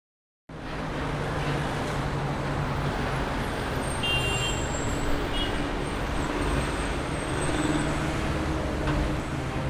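Street ambience with a steady hum of road traffic, coming in suddenly after a brief silence about half a second in.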